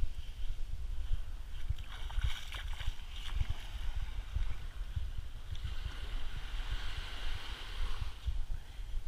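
Wind buffeting the microphone with a gusty low rumble, over small waves lapping at the sandy shore.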